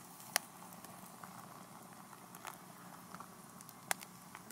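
Wood fire crackling in a stainless-steel fire pit: faint steady hiss with scattered sharp pops, two louder ones shortly after the start and near the end.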